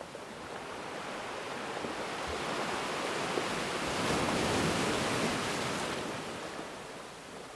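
Sea waves breaking and washing on the shore: a surge that builds to a peak about halfway through and then subsides.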